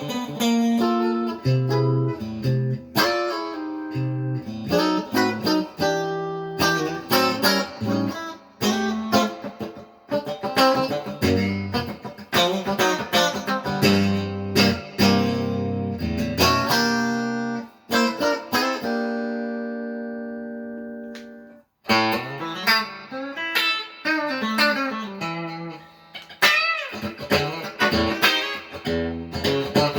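1965 Fender Stratocaster electric guitar played with a clean tone through a Roland Cube-40XL amp: picked single notes and chords. About two-thirds of the way through, a chord is left to ring and fade out, then the playing starts again.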